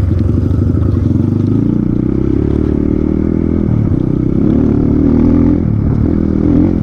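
Off-road motorcycle engine running loudly, its pitch rising and falling as the throttle is worked, with a higher rev about two thirds of the way through.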